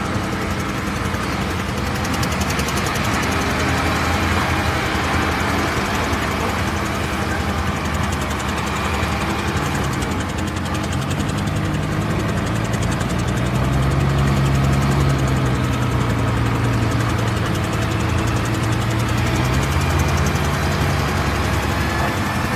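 An engine running steadily, with a low hum that shifts in pitch and grows a little louder about halfway through.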